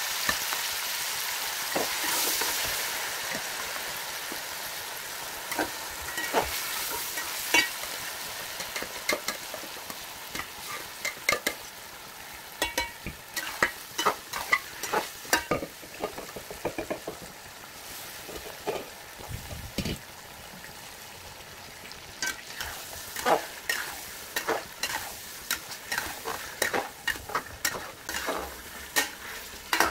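Marinated chicken pieces frying in hot oil in a metal pot, the sizzle loudest at first and fading as the marinade mixes into the oil. A metal spoon stirs the chicken and scrapes and clinks against the pot many times.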